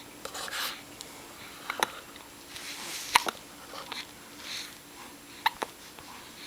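Hiccups: three sharp hiccups about two seconds apart, the loudest about three seconds in, with soft breathing between them.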